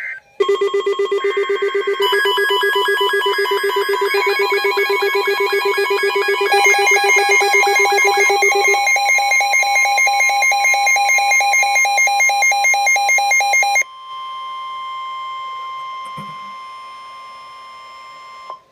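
Severe thunderstorm warning alert: several electronic alarm tones pulse rapidly together, more joining one after another in the first few seconds, all stopping at once about 14 seconds in. A single steady alert tone of about 1050 Hz, the NOAA Weather Radio warning tone, then sounds alone, slowly fading, and cuts off just before the end.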